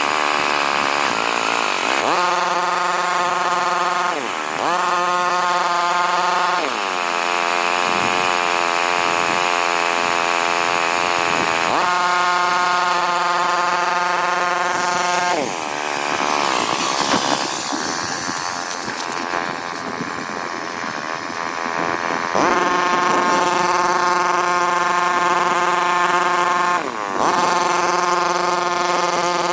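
Small electric motor whining with a steady pitch for stretches, its speed dropping and picking up again several times, the pitch gliding down and back up each time.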